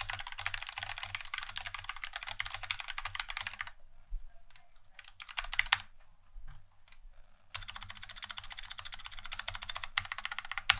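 Typing on a Tecware B68 mechanical keyboard with Gateron Black linear switches, set on a desk mat. Rapid keystrokes run for the first few seconds, thin out to a few separate key presses from about four seconds in, then pick up into fast typing again near the end.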